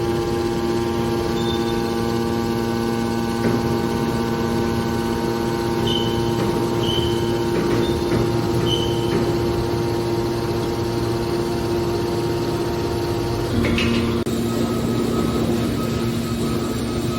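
Aluminum can baler's hydraulic power unit running with a steady machine hum; its tone shifts with a brief knock about fourteen seconds in.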